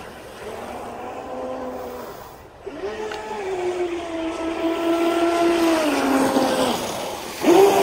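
Electric RC speedboat's motor whining as the boat runs across the water. The whine fades about two seconds in, picks up again and holds steady, drops in pitch around six seconds in, then comes back louder near the end.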